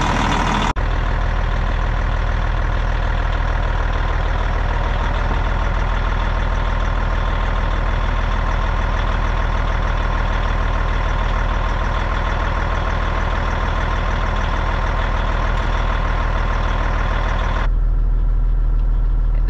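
Caterpillar diesel engine of a 2003 Kenworth T800 dump truck idling steadily. Near the end the sound turns into a duller low rumble as heard from inside the truck's cab.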